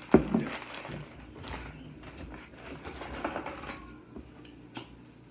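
Takeout food and its packaging being handled at a table: a paper bag rustling, with scattered light clicks and taps and one sharp knock right at the start.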